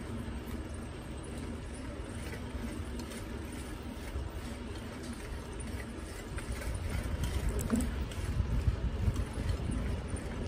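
Wind buffeting the microphone of a phone riding on a moving bicycle, with the low rumble of the ride and a few light rattling clicks. The buffeting grows louder and gustier about two-thirds of the way through.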